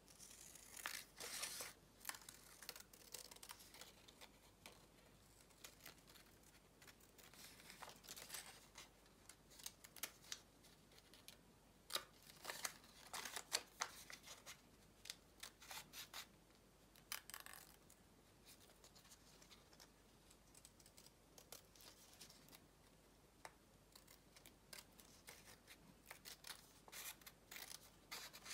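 Scraps of paper being handled close by: soft rustling and crinkling with short, crisp paper noises in irregular bursts, the sharpest about twelve to fourteen seconds in.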